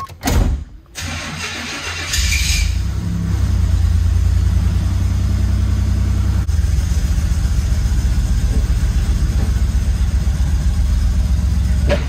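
Buick Grand National's turbocharged V6 being cranked and catching about two seconds in, then running steadily, heard from inside the cabin.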